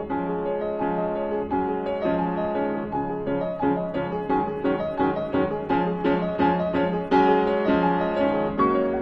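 Background piano music, gentle and steady, with a run of quicker repeated notes in the middle.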